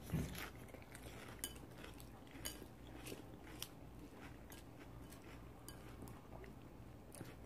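Quiet eating sounds: chewing, with scattered soft clicks of chopsticks against a bowl and a soft knock right at the start.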